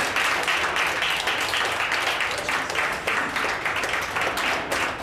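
A small group of people applauding, a dense patter of hand claps that thins out to fewer, separate claps near the end.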